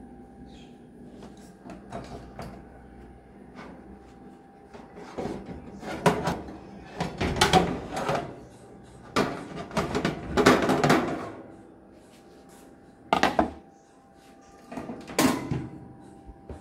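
Metal baking pan scraping and clattering against a wire oven rack as it is drawn out of the oven, in several bursts through the middle and once more near the end.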